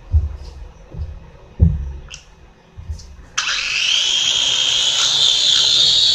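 A few knocks and clicks from a small toy drone being handled. Then, about three seconds in, its motors and propellers start suddenly into a loud, steady high-pitched whine.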